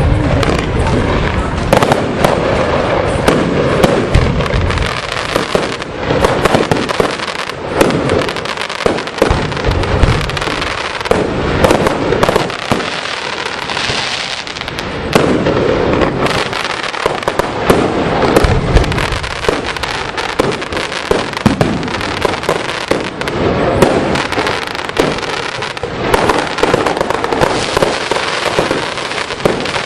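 Fireworks display: a dense, continuous barrage of shell bursts, many sharp bangs a second, over steady crackling.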